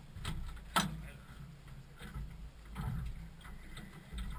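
Wind buffeting the microphone in an uneven low rumble, with a few sharp knocks and clicks against the airframe, the loudest just under a second in.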